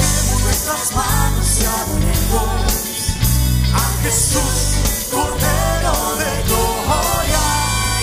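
Live Spanish-language worship song: vocalists singing over a band with electric bass, keyboard and saxophone.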